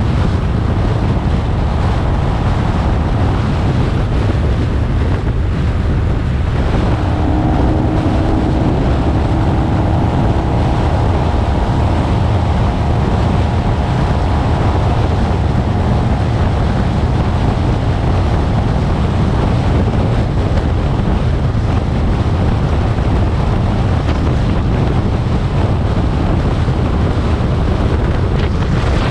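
Steady wind rush over a bike-mounted action camera at highway speed on a Kawasaki Vulcan 900 V-twin cruiser, with the motorcycle's drone underneath. A faint steady whine joins in about seven seconds in and fades out after some ten seconds.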